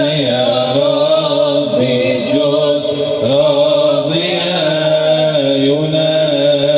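Male voice chanting an Islamic nasheed: a slow melody that bends up and down over a steady held drone.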